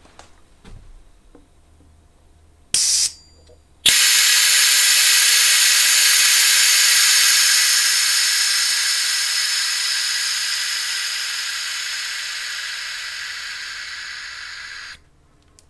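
Compressed air hissing out as the test line on a model engine cylinder is vented: a short blip about three seconds in, then a loud, steady hiss from about four seconds that slowly fades as the pressure drops from about 32 psi to zero and cuts off sharply near the end.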